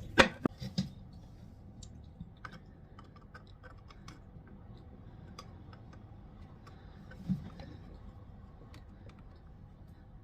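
Scattered clicks and taps of hands and metal on the toilet's water-supply isolation valve as it is worked from the open to the closed position, with a few sharper clicks in the first second and fainter ones after.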